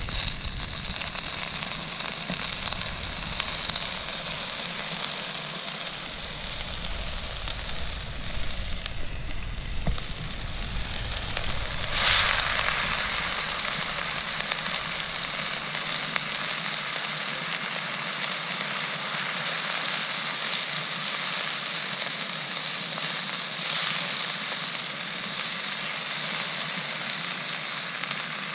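Food frying in a pan over a campfire, sizzling steadily with fine crackling, and a brief louder surge of sizzle about twelve seconds in.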